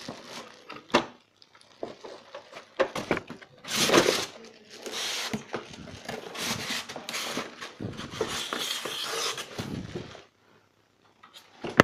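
Packaging handled as an air purifier in plastic wrap and polystyrene foam end blocks is lifted out of a cardboard box: rustling and scraping with scattered knocks, then a brief lull and one loud sharp knock at the very end.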